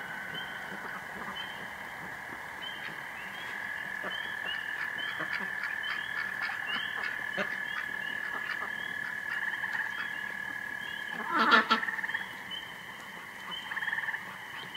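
Night frog chorus: a continuous high trill with short chirps repeating over it about two a second. About eleven and a half seconds in, one loud call from a duck or goose in the flock stands out above the frogs.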